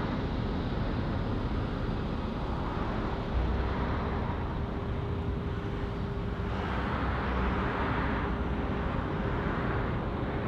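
Airbus A320-family airliner's jet engines during touchdown and landing rollout: a steady rushing roar, with a low surge about three seconds in and a swell for a couple of seconds past the middle.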